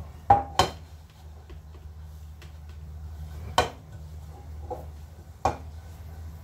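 Kitchen utensils knocking and clinking against pans and dishes: two sharp knocks in quick succession near the start, then single knocks a few seconds apart, over a steady low hum.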